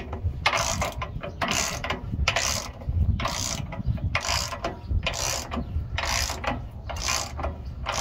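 Hand ratchet clicking in short bursts, about one stroke a second, as it turns down the threaded rod of a pivot bushing installer tool pressing a Meritor suspension pivot bushing into place. The turning is still real nice and soft: the bushing is going in without much resistance.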